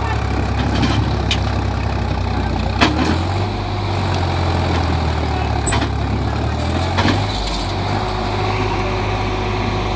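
Diesel tractor engine running under load as it strains to pull a loaded sugarcane trailer that is stuck in soft soil. Its note steps to a new pitch about three seconds in and again about seven seconds in, with a few sharp clicks along the way.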